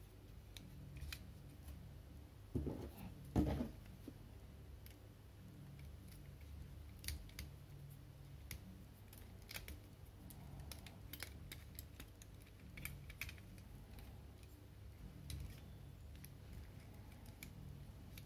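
Scattered small clicks, snips and taps of plastic toy figures being freed from their packaging, with two dull knocks about three seconds in.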